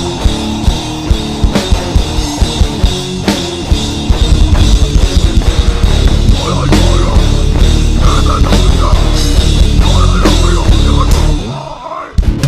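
Hardcore punk band playing: drum kit and guitar at full volume, fuller from about four seconds in. The band stops for a moment near the end, then crashes back in.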